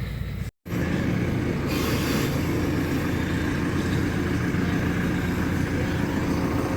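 Telehandler's diesel engine running steadily, with a short hiss about two seconds in.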